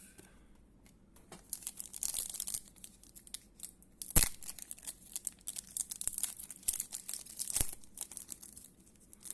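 Foil trading-card pack wrappers crinkling and tearing as they are handled, in irregular crackly rustles, with two sharp taps, the louder one about halfway through.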